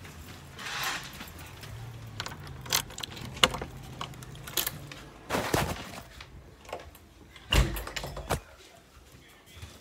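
Handling noise from a phone carried low against clothing and a bag: rubbing, scrapes and a scattered series of sharp knocks, loudest about halfway and again about three-quarters through, with a faint low hum under the first half.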